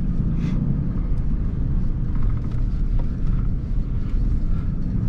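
Off-road vehicle driving slowly down a rough dirt trail: a steady low rumble of engine and tyres, with a few light rattles and knocks over it.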